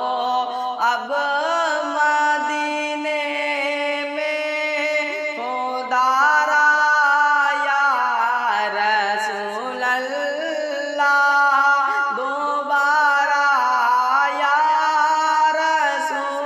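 A naat, a devotional Islamic song, sung in a chanting style: the voice holds long notes and slides between them in ornamented runs, continuous with no regular beat.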